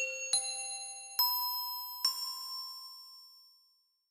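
Short intro jingle of four bell-like chime notes, each struck and left ringing, the first three stepping up in pitch, dying away near the end.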